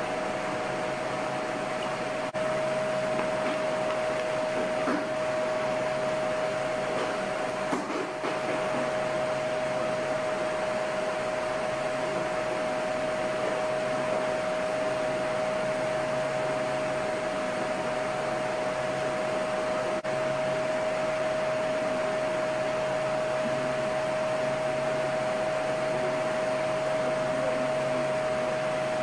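A steady machine hum with one constant mid-pitched tone over an even background noise, unchanging throughout.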